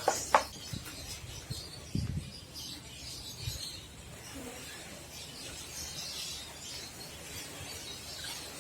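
A few sharp clicks and knocks in the first half second, and a dull knock about two seconds in, over a faint background with birds chirping.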